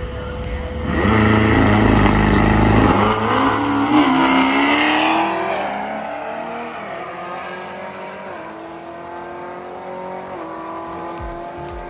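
A drag race car engine launching hard, its pitch climbing for a few seconds, then fading to a lower steady drone as the car runs away down the strip.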